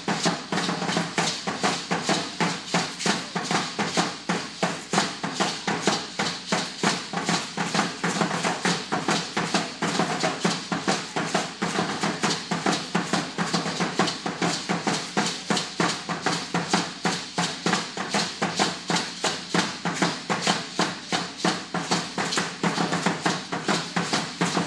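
Danza azteca drumming: a large upright huehuetl drum beaten in a fast, even beat, with the shaking rattle of the dancers' ankle rattles and stamping feet.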